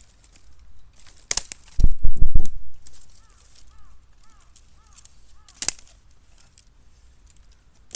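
Bamboo bursting in a fire in a metal can: sharp gunshot-like bangs, with a loud rapid run of pops about two seconds in and single bangs later and at the very end.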